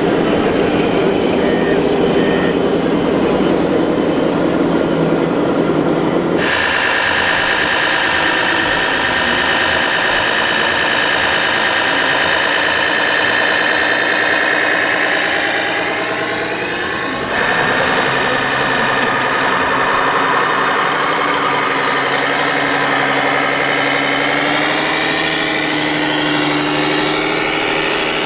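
1/14-scale RC construction machines working: a steady mix of electric-motor and pump whines with an engine-like hum, the pitch shifting up and down as they move, changing abruptly about six seconds in and again near the middle.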